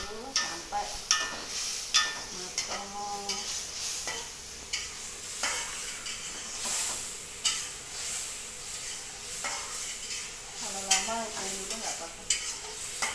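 Shredded chicken sizzling in a frying pan while a spatula stirs it, with repeated sharp scrapes and clicks of the spatula against the pan over a steady sizzle.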